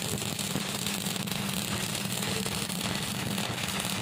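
Stick welding arc burning steadily on steel plate: a continuous crackling sizzle with a steady low hum beneath it.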